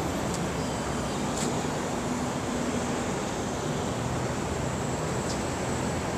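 New York City subway train running: a steady rumble and rush of noise with a faint hum and a few light ticks.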